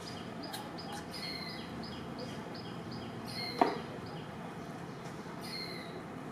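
Outdoor forest ambience: a steady run of short high chirps, about four a second, with a falling whistled call every couple of seconds. One brief loud sound about halfway through.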